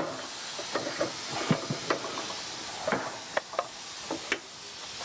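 Steady hiss with about five scattered knocks and clanks as a wide tire is worked on a Ranger R980AT tire changer, its tools and levers striking the wheel.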